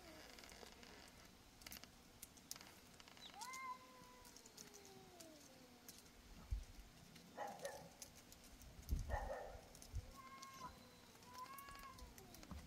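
A cat meowing in drawn-out calls: one long call about three and a half seconds in that falls in pitch as it fades, then two shorter calls near the end. A couple of brief scratchy rustles come in between.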